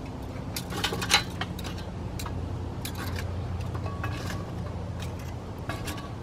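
Metal grill tongs scraping and clinking hot charcoal briquettes across the charcoal grate of a Weber Jumbo Joe kettle grill, arranging the coals against one side. There are scattered sharp clinks, the loudest about a second in, over a low steady hum.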